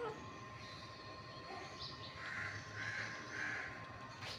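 Three short harsh calls in quick succession, about half a second apart, from an animal in the background.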